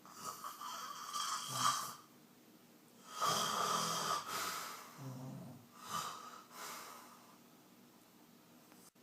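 A man snoring loudly in his sleep. There are three snores: the first about two seconds long at the start, the second about three seconds in, and a shorter one about six seconds in.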